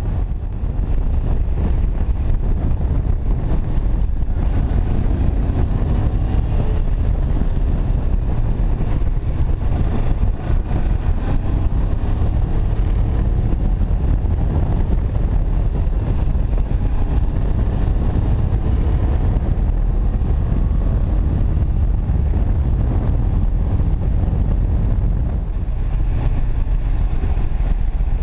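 Kawasaki Ninja 650's parallel-twin engine running at road speed, under a steady low rumble of wind on the microphone.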